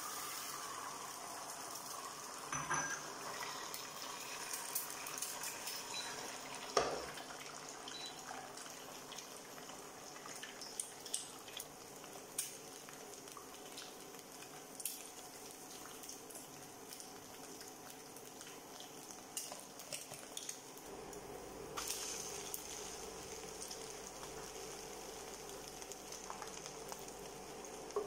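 Beaten egg frying in a non-stick pan on an induction hob, a light steady sizzle, with scattered small knocks and clicks of utensils against the pan and bowls. A low steady hum joins about three quarters of the way through.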